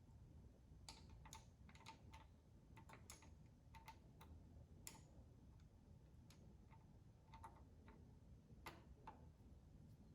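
Faint, irregular small clicks and ticks of a hand tool turning an M4 screw as it is tightened down.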